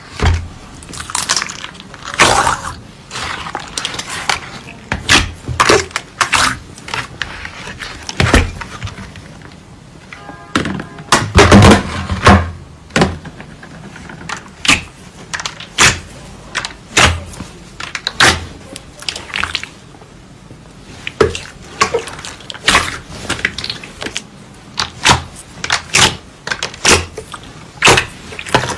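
Glossy slime being pressed, poked and kneaded by fingers, giving irregular wet pops, clicks and squelches with a louder run about eleven seconds in.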